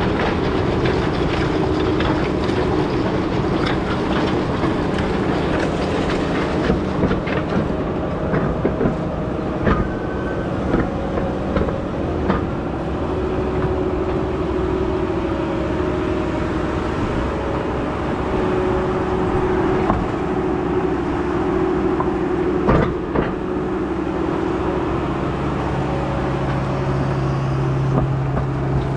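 A large farm tractor's engine running steadily while working the field, with scattered knocks and rattles. A deeper steady drone comes in near the end.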